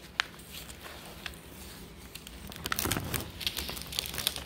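Plastic cover film and paper of diamond painting canvases rustling and crinkling as they are handled, with scattered light clicks and a busier stretch about three seconds in.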